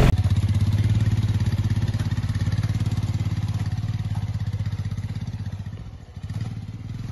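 Motorcycle engine running steadily with an even pulse, slowly getting quieter, with a brief dip about six seconds in.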